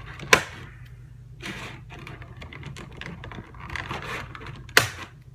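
Plastic toy packaging being cut and pulled open: scraping and rustling, with two sharp clicks, one just after the start and one near the end.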